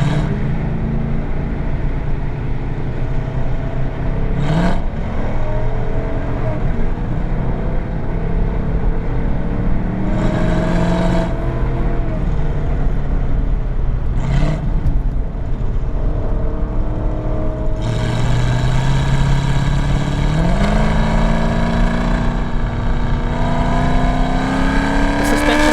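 Camshaft-swapped Chevrolet SS V8 with long-tube headers, driving and accelerating: the engine note climbs, then drops back at gear changes several times. The longest pull comes near the end.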